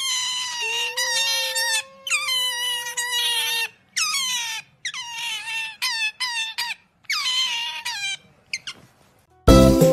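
Pet otter squealing: a run of about six high-pitched, drawn-out squeaks, each dropping in pitch at the start and then holding, with a lower steady note under the first two. Music starts just before the end.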